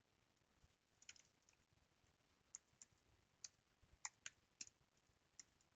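Faint, irregular clicks of computer keyboard keys being typed, about a dozen keystrokes scattered through otherwise near silence.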